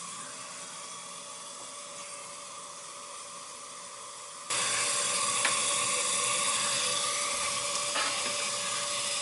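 Hot-water heating system running: a steady hiss of water moving through the piping and circulator, with a faint steady hum. It jumps abruptly louder about halfway through, then holds steady.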